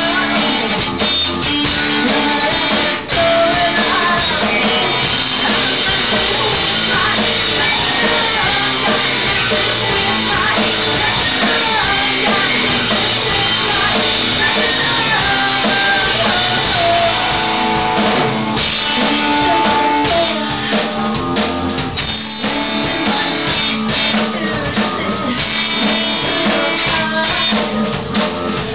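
Live rock band playing amplified: electric bass, electric guitar and drum kit, with a vocalist singing into a microphone.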